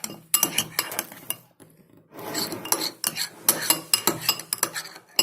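A spoon stirring slime mixture in a bowl, clinking and scraping against the bowl's side in quick irregular strokes, with a short pause partway through.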